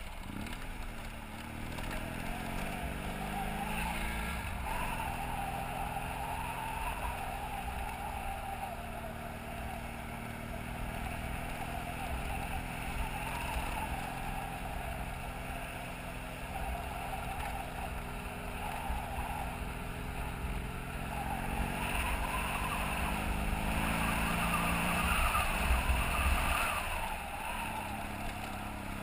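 BMW F800GS motorcycle's parallel-twin engine running along a dirt road, its pitch slowly rising and falling with the throttle, over a steady low rumble that grows louder about 25 seconds in.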